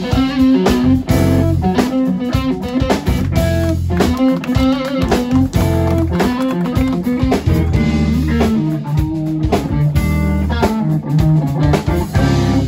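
Live instrumental jazz-fusion band playing: electric guitar to the fore, with bass guitar, keyboards and a Pearl drum kit.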